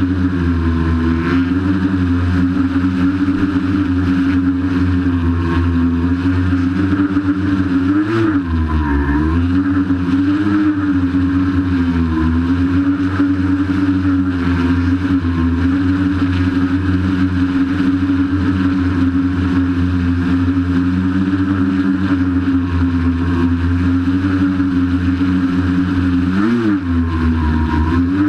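Large hexacopter's six electric motors and propellers, driven by Castle Creations Phoenix Edge 100 ESCs, running with a steady buzz in hover. The pitch swings briefly up and down about eight seconds in, and again near the end, as the motors change speed.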